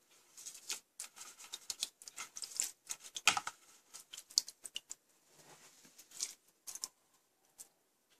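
Rapid small clicks, taps and rustles of objects being handled, with one louder knock about three seconds in.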